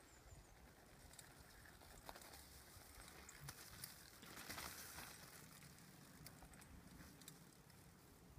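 Near silence: faint outdoor ambience with a few faint clicks, and a short swell of noise about four seconds in as a BMX bike rolls past close by on the dirt.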